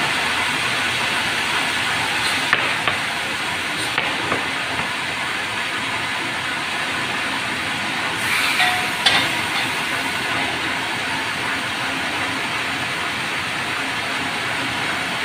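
Sawmill band saw headrig sawing lengthwise through a Merbau log, a steady loud hiss, with a few sharp knocks, the loudest a little past halfway.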